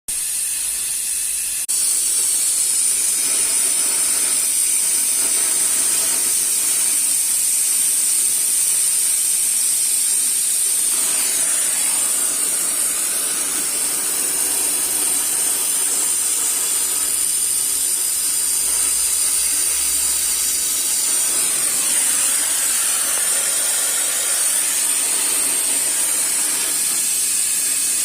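Oxyacetylene welding torch flame hissing steadily; it grows a little louder about two seconds in.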